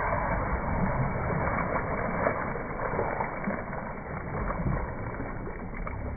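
Water splashing and sloshing in a swimming pool from people swimming in it, a steady wash of noise.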